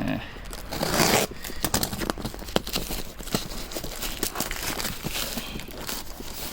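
Shipping package being torn open, with a loud tearing rip about a second in, followed by rustling and crackling of the wrapping.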